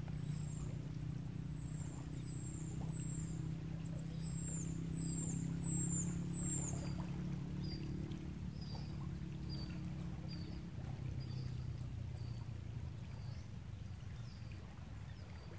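A motor hums steadily and low, easing off about two-thirds of the way through. Over it a bird repeats a short, high, falling chirp roughly once a second.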